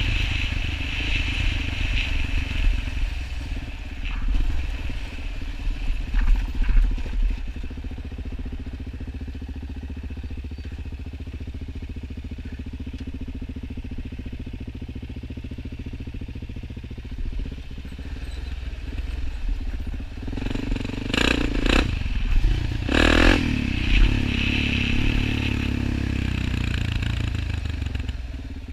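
Suzuki LTZ 400 quad's single-cylinder four-stroke engine running under way, revs rising and falling as it is ridden. About three-quarters through, a stretch of harder revving mixed with sharp knocks and rattles.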